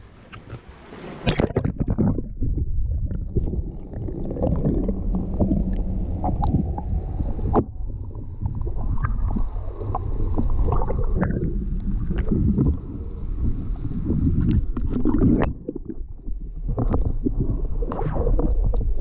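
Water heard through a submerged camera: muffled gurgling and sloshing with scattered knocks. Near the end come splashes as a hooked tarpon thrashes at the surface.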